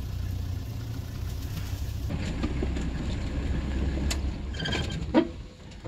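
Safari vehicle's engine idling, a steady low rumble. About five seconds in, a short loud cry that falls in pitch.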